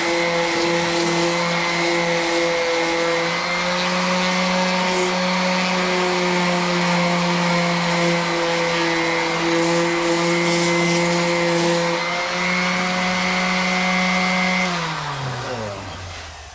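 Variable-speed electric sander running at a steady speed with a constant whine. Near the end it is switched off and spins down, its pitch falling away to nothing.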